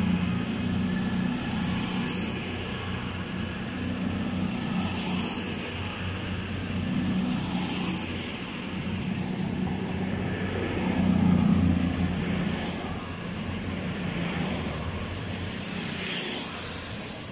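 A pair of Class 220 Voyager diesel-electric multiple units pulling out and passing close by. The underfloor diesel engines run with a steady low drone over wheel and running noise, and a thin high whine rises slightly about twelve seconds in. The sound fades a little near the end as the train moves away.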